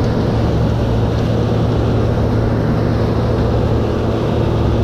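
Diesel engine of harvest farm machinery running at a steady speed, a constant low hum.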